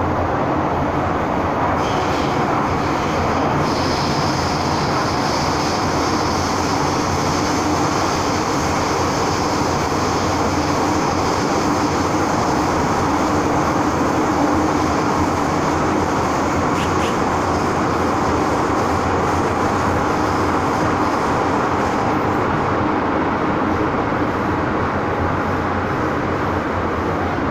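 MTR M-Train electric multiple unit running at speed, heard from inside the passenger saloon: a steady rumble and rush of wheels on rail, with a faint high-pitched whine through most of it.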